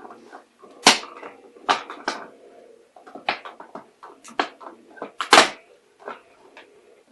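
Dogs scuffling over a plastic bottle: a string of short, sharp cracks and knocks, the loudest about a second in and again near five and a half seconds, with fainter dog noises between them.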